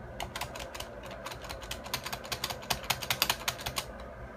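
Typing on a computer keyboard: a quick run of keystrokes, about seven a second, that stops shortly before four seconds in.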